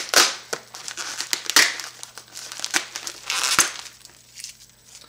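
A sealed mailer envelope being torn open and crumpled by hand: a series of sharp crinkling rustles and rips that ease off near the end.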